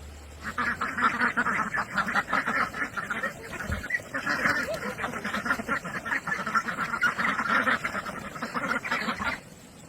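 Flock of ducks quacking in a dense, continuous chatter that starts about half a second in and stops shortly before the end.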